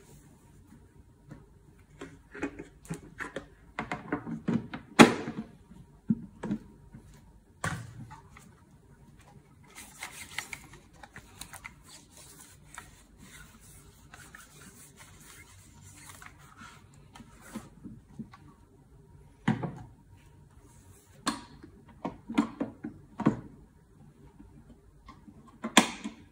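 Handling noise from a Philips PerfectCare 9000 steam generator iron and its plastic base station: a cloth rubbing over the plastic and the soleplate, with scattered knocks and clicks. The loudest knock comes about five seconds in, and there is a final clunk near the end as the iron is set onto its base.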